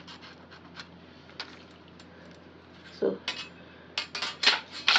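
A few short, sharp scratchy strokes of a pen and tape measure on pattern paper in the last two seconds, after a quieter stretch with only faint ticks over a steady low hum.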